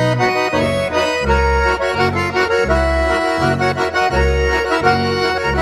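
Accordion music with a steady oom-pah bass alternating about twice a second, in a lively folk style.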